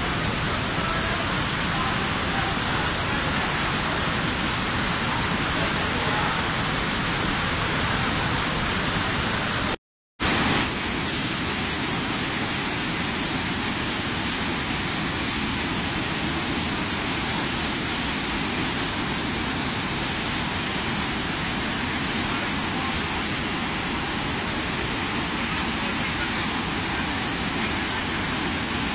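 Floodwater rushing in a steady, unbroken noise. The sound cuts out for a moment about ten seconds in and comes back with a brighter hiss.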